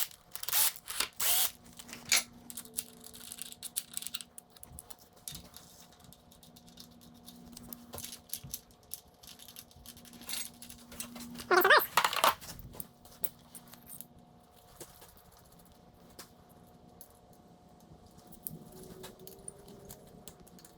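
Clicks, clinks and rattles of hand tools and loose metal parts being handled while a dirt bike's handlebars are unbolted, with a louder burst a little past halfway and a faint steady hum underneath.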